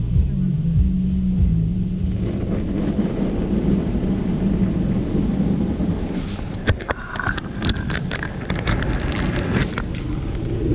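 Tunnel car wash spraying water and foam over a car, heard from inside the cabin as a steady rushing rumble. From about six seconds in comes a run of sharp slaps and knocks on the body and glass.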